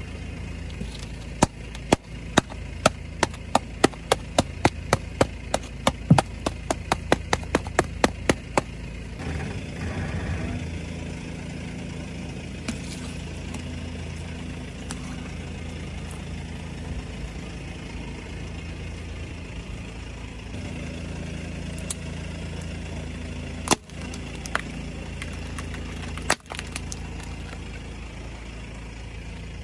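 A car's engine idling steadily while its tyre rolls slowly over objects on asphalt and crushes them: a quick run of sharp crackles and snaps, two or three a second, for the first several seconds, then quieter squashing, and two single sharp cracks later on.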